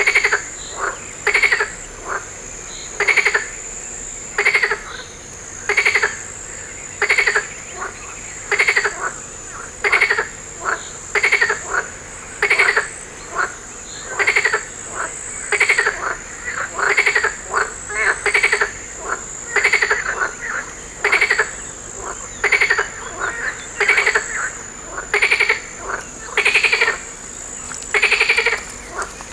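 Frogs croaking by the water: short rattling calls repeated about once a second, sometimes two in quick succession, over a steady high-pitched hum.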